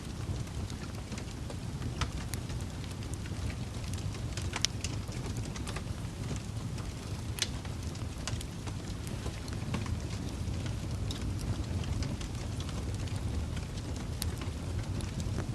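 Wood fire crackling in a fireplace: a steady low rumble of burning logs with scattered sharp pops, the loudest about four and a half and seven and a half seconds in.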